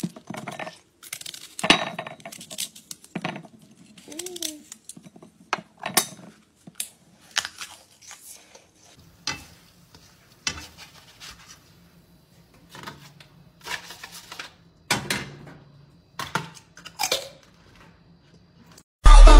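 Kitchen handling sounds: a long run of separate sharp clinks, taps and scrapes of utensils against a plate and a frying pan, spaced irregularly. A faint low hum comes in about nine seconds in.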